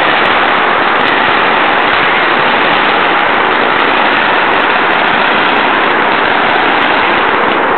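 Fireworks barrage with a dense, steady crackle and no single bang standing out.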